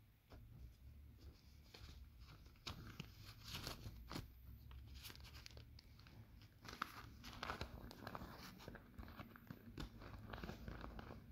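Paper banknotes being handled and gathered up, giving faint, irregular crinkling and rustling with scattered sharp clicks.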